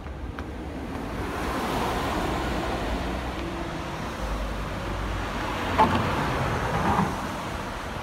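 A road vehicle passing, its noise swelling and then easing off, with a deep rumble at its loudest and two short sharp knocks about a second apart in the second half.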